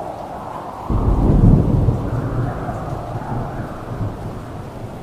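Steady rain with a clap of thunder that breaks in suddenly about a second in, its deep rumble loudest at first and then rolling away over the next few seconds.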